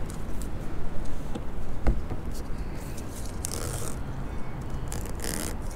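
Red backing liner being peeled off 3M VHB double-sided mounting tape, giving short scratchy peeling noises, the loudest about three and a half and five seconds in, over a steady low rumble.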